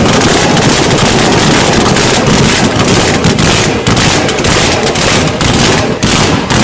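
A car's engine and exhaust running very loud at close range, heard as a dense, harsh rush that overloads the microphone, with brief dips in level.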